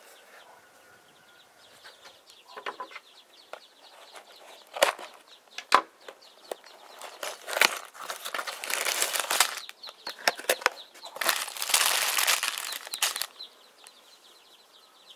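A small cardboard toy box being opened by hand: a few sharp clicks and scrapes as the end flaps are pulled open. From about halfway in, several seconds of loud crinkling and rustling as the plastic bag of bricks is slid out of the box.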